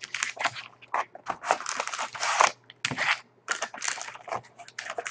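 Foil-wrapped trading card packs crinkling and scraping as they are pulled one after another out of a cardboard hobby box and set down on a table: a quick series of short rustles.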